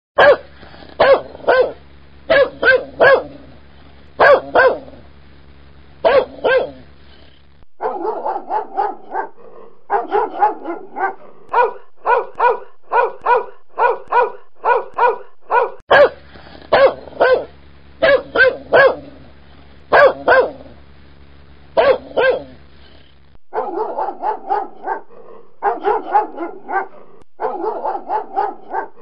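Doberman barking. Loud barks come in quick clusters of two or three over a low steady hum, then give way to a faster, steadier string of barks, and the two patterns alternate twice.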